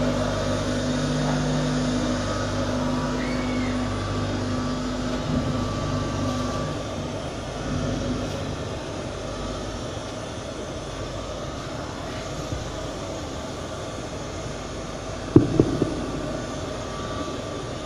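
Steady low rumble of a large, crowded hall, with a low hum that fades out over the first several seconds and a brief double knock about fifteen seconds in.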